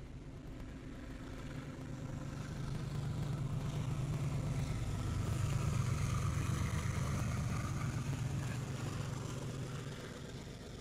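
BNSF diesel-electric locomotives passing at low speed, their engines' steady drone growing louder to a peak about halfway through as the units go by, then easing off as they move away.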